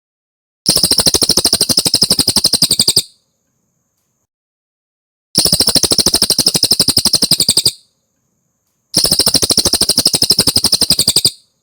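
Cililin songbird singing three rapid, even trills, each about two seconds long, with short silences between them.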